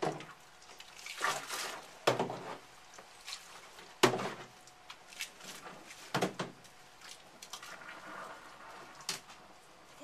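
Water splashing and dripping in a utility sink as a wet Westie puppy is scrubbed by hand. It comes in short irregular bursts, with a few sharp sudden ones; the sharpest is about four seconds in.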